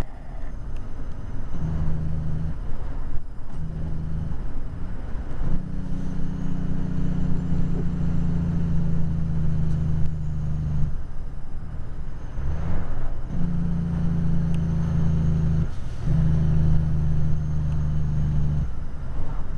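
Heavy truck's diesel engine running under way, heard from inside the cab as a low steady drone. The engine note drops out briefly several times, once with a short rise in pitch about two-thirds of the way in.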